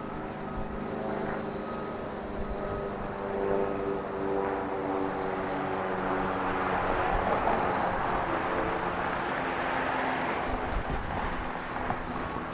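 Engine noise: a steady multi-tone hum under a rushing roar that swells about halfway through and eases off toward the end.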